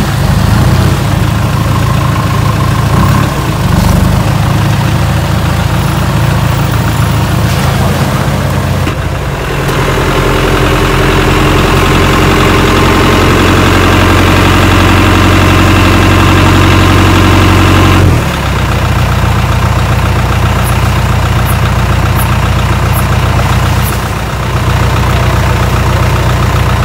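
Modified off-road race 4x4's engine running. About nine seconds in it goes to a louder, steady drone that holds until about eighteen seconds, then drops back to a lower running note.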